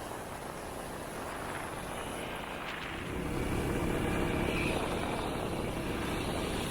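Motorcycle engine running on the move, getting louder about halfway through.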